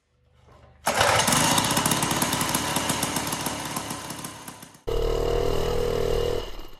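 Snowblower-derived two-stroke engine on a homemade minibike, running with a rapid, rattly buzz. It comes in abruptly about a second in and fades over the next few seconds. After a sudden cut near the end, the engine runs steadily under load with a low rumble as the minibike is ridden.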